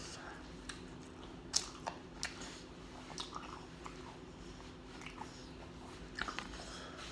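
A person chewing a fried chicken tender close to the microphone: scattered sharp clicks and crunches, the loudest about one and a half seconds in, with a cluster near the end.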